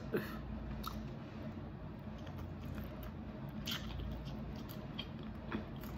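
A person biting into and chewing a sauce-dipped birria taco: a few scattered soft wet clicks over a low steady hum.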